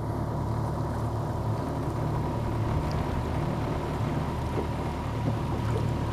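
Engine of a small sightseeing boat running steadily under way, an even low drone that holds its pitch throughout.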